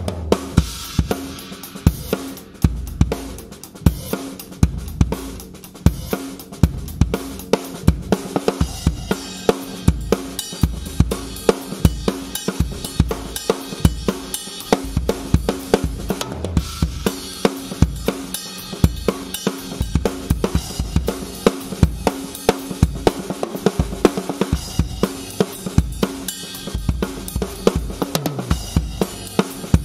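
Yamaha acoustic drum kit with Sabian HHX cymbals played in a steady groove: kick drum, snare and cymbals. It is picked up through a Yamaha EAD10 mic/trigger on its Compressor scene, which makes the drums more even in level and more powerful.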